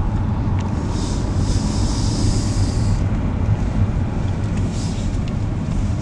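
Steady road and engine noise heard inside a moving car: a dense low rumble with a hiss that rises for about two seconds, starting about a second in.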